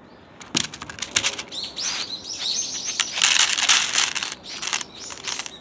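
Crackling and rustling handling noise, thickest about three to four and a half seconds in, with a quick run of short high bird chirps about two seconds in.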